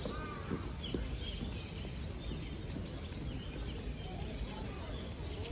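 Small birds chirping in short, repeated calls over a steady low outdoor rumble, with a few footsteps.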